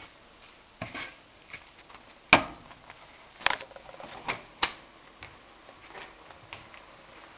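Wooden spatula stirring sautéed vegetables in a frying pan, knocking and scraping against the pan in irregular clicks, with a few sharper knocks in the middle.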